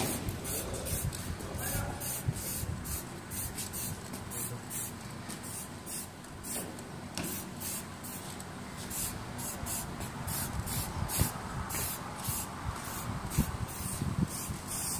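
Aerosol spray-paint can sprayed in many short, repeated bursts, about two a second.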